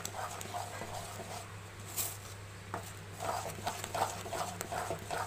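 A spatula stirring thick besan batter in sugar syrup in a metal pan: soft, irregular scrapes and taps against the pan, with a few sharper clicks about two seconds in, over a low steady hum.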